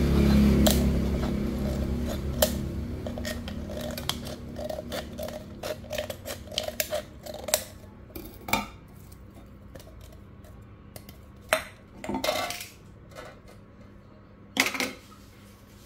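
Thin aluminium drink can being cut open with scissors: a run of quick snips and metallic clicks, then a few clatters as the scissors and can are set down on a stone slab. A low hum at the start fades away over the first few seconds.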